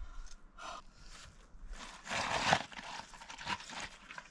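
Bare feet scuffing and crunching over stony ground and ice at the edge of a frozen pool, with a louder rustling burst about two seconds in.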